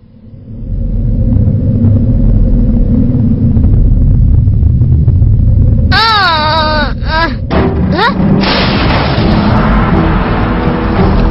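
Cartoon sound effects: a deep rumble for about five seconds, then a wavering high-pitched cry about six seconds in and a short rising whoosh, followed by music.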